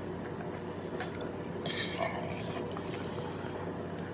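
A hand dental scaler scraping plaque off a bull terrier's canine tooth, with small scattered clicks and wet mouth sounds from the dog's saliva. A brief high squeak comes near the middle.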